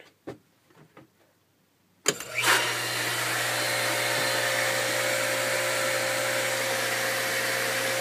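A motor contactor clicks shut about two seconds in and the Jacuzzi FM series pool pump's electric motor starts, then runs steadily with a low hum. Before that there is near silence with a couple of faint ticks.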